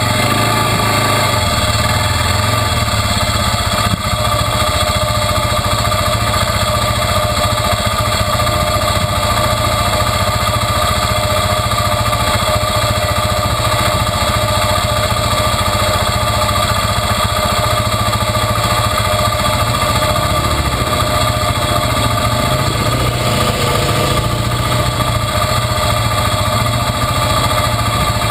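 ATV (quad) engine idling steadily, heard up close.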